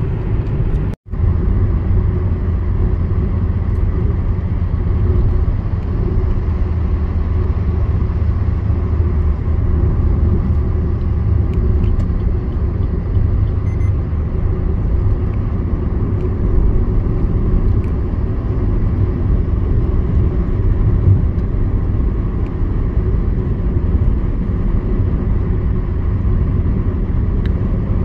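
Steady road and engine rumble inside a Maruti Suzuki Ertiga cruising on a highway at around 85–90 km/h. The sound drops out for an instant about a second in.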